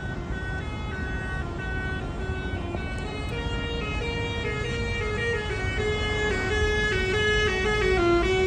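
A Mercedes-Benz coach drawing closer, playing a tune on its multi-tone telolet horn, held notes stepping up and down in pitch over the low rumble of its engine and exhaust. Both grow louder toward the end as it nears.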